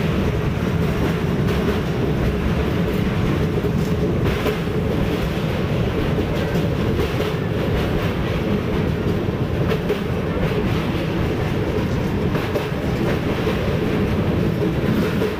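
Passenger express train running over a river bridge, heard from inside the coach at an open window: a steady, heavy rumble of wheels on rail with a few faint clicks.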